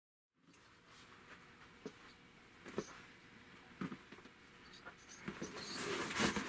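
A taped cardboard box being handled: a few soft knocks about a second apart, then a scratchy rustle of cardboard that grows near the end.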